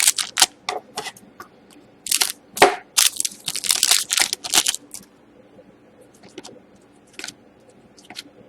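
Hockey trading cards and their pack wrapper being handled: a run of dry crinkling and scraping rustles for about five seconds, then only a few light clicks and taps.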